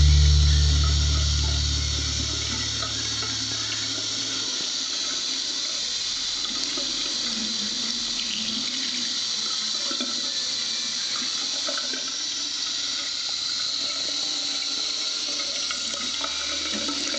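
Thin stream of water from a bathroom tap running steadily into a ceramic basin.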